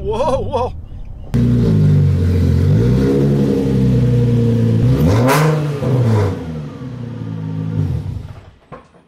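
Nissan 350Z's 3.5-litre V6 being revved. It cuts in suddenly, and the engine note climbs and falls twice, with a short sharp crack about five seconds in, then dies away near the end.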